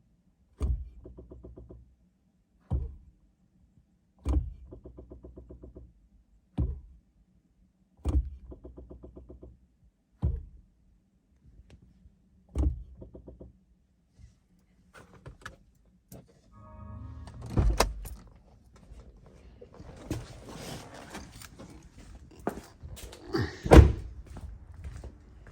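2017 Chevy Bolt's brake booster making a repetitive clicking noise: a sharp click about every two seconds, each followed by a short buzz, seven times over. After that come irregular knocks and rustling, with a loud thump near the end.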